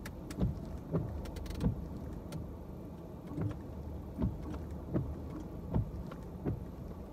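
Car windshield wipers sweeping back and forth as the washer is worked, a soft thump about every three quarters of a second over a steady low hum, heard inside the car's cabin.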